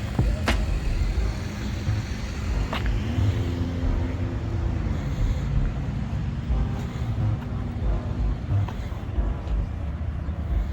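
Car engines running and moving about in a parking lot, a steady low rumble with a couple of sharp clicks.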